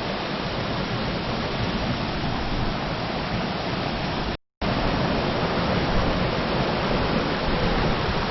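Amedaki waterfall's water plunging, a steady, even rush of noise, broken by a split-second gap about halfway through.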